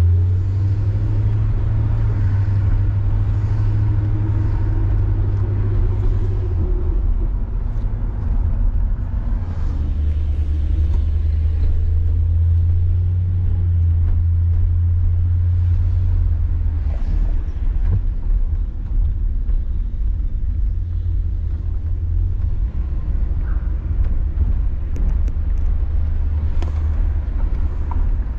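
1966 Ford Galaxie 500 under way, its 352 V8 and the road noise making a steady low drone. The drone swells for the first six seconds and again from about ten to seventeen seconds in, with a brief rising note near thirteen seconds.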